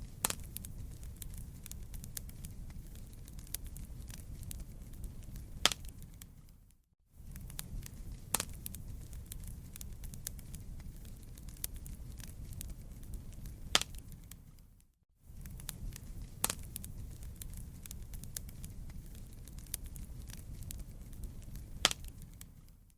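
Wood fire burning: a steady low rumble with dense small crackles and a few sharper pops. The sound fades out briefly about every eight seconds and comes back.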